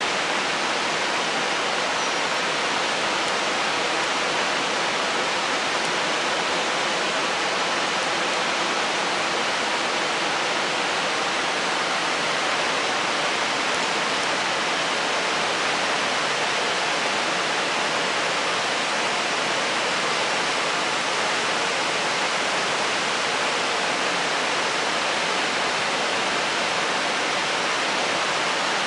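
Senjin Falls, a waterfall, pouring with a steady, unbroken rush of falling water.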